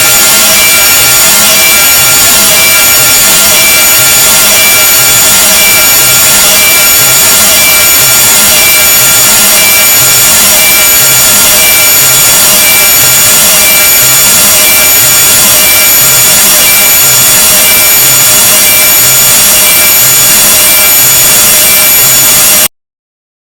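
A deliberately harsh noise sound effect: a very loud, dense rasping noise with several steady high-pitched tones ringing through it and a low pulse repeating about one and a half times a second. It cuts off suddenly near the end.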